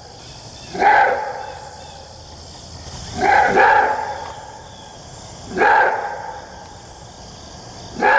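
Maned wolf giving its roar-bark, the species' long-distance call: single loud barks repeated about every two and a half seconds, the second one a quick double bark.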